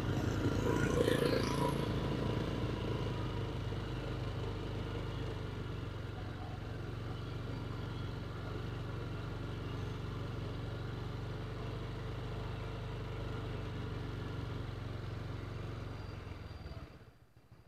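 Small motorbike engine running steadily at low speed, with a louder swell in the first two seconds as another motorbike passes; the sound drops away sharply near the end.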